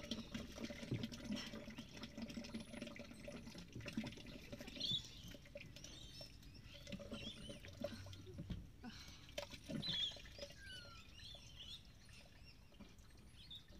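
Waste from a caravan cassette toilet being poured out into a dump point, a faint uneven sloshing and splashing of liquid, with birds chirping now and then.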